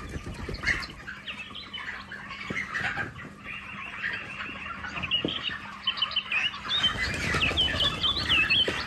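A flock of broiler chickens cheeping and chirping with many short, high calls. Near the end there is a burst of wing flapping and scuffling in the litter as one bird is caught.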